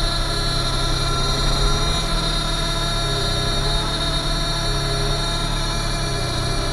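Sany SY35U mini excavator's diesel engine running steadily, heard from inside the cab, with a faint high whine above it.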